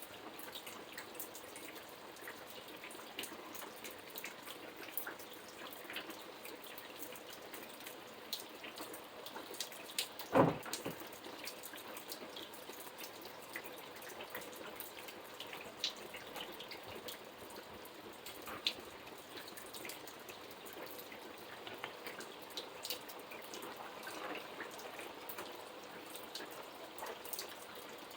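Steady rain with many separate drops hitting a surface, and one louder thump about ten seconds in.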